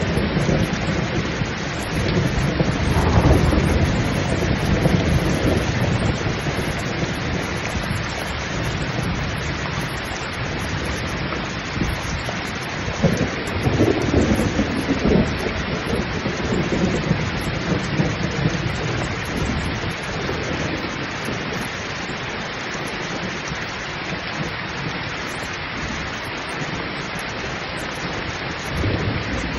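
Heavy, pouring rain with rolling thunder. The thunder rumbles up a few seconds in and again about halfway through, over the steady rush of the downpour.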